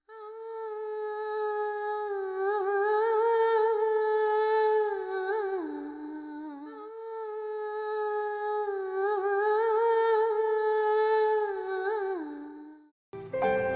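A woman humming a slow, wordless melody in two long phrases, each ending in a downward slide. Instrumental music starts just before the end.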